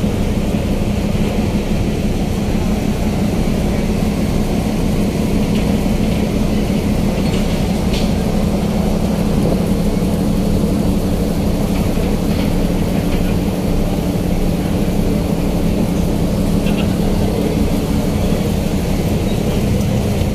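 Steady low drone of the Port Link III car ferry's engines and machinery, heard aboard, with a constant low hum and a few faint clicks.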